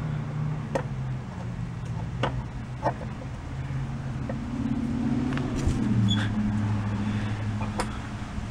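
A motor vehicle engine running steadily, its low pitch shifting up and down a few times. Scattered light clicks and knocks from the scooter's seat being handled.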